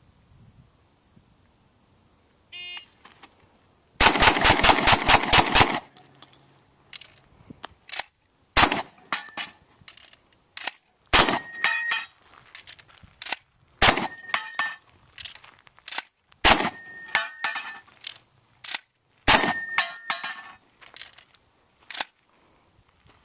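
Benelli M1 Super 90 semi-automatic 12-gauge shotgun firing a fast string of eight shots, two on each of four steel targets. Then come five single shots about two and a half seconds apart, each followed by steel pepper-popper targets ringing and the small clicks of a shell being loaded by hand between shots.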